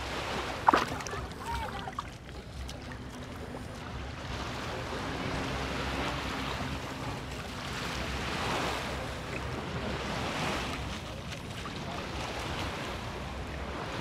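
Calm shallow sea water gently lapping and sloshing around people wading, swelling softly a few times. There is a single sharp knock about a second in.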